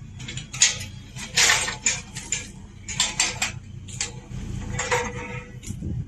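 Irregular clattering and rattling: a run of short, sharp knocks and rattles, several bunched together in the middle, over a low steady hum.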